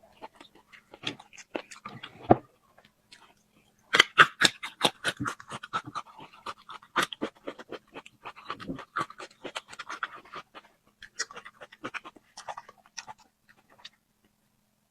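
Close-up eating sounds: chewing, with quick wet clicks and crunches. There is a short lull about three seconds in, then steady busy chewing.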